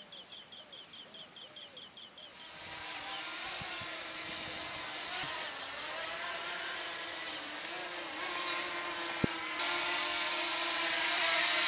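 Quadcopter drone's propellers whining as it flies close by, coming in a couple of seconds in and getting louder, with a further step up near the end. Before it, a bird chirps a quick run of short notes.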